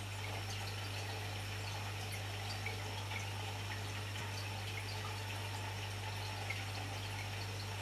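Aquarium air-stone bubbles streaming up and breaking at the water surface, a steady fizz flecked with tiny pops, over a constant low hum from the tank equipment.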